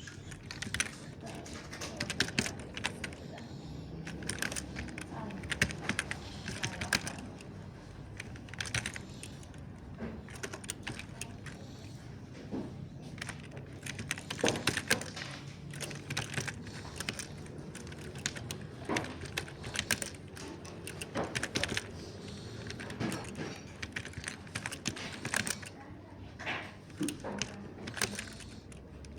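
Mechanical keyboard being typed on: a continuous run of quick, irregular keystroke clicks.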